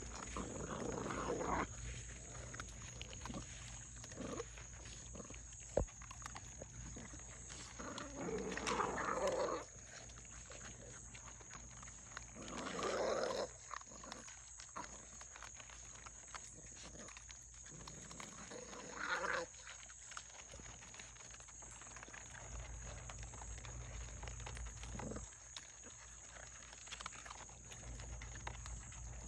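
A puppy growling over its food in several rough bursts of a second or two: food-guarding aggression at the bowl. A sharp click about six seconds in.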